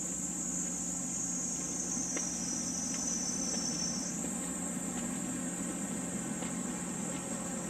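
Cicadas shrilling in a steady, high-pitched summer chorus, one call sliding slightly lower in pitch and snapping back up about four seconds in, over a low steady hum.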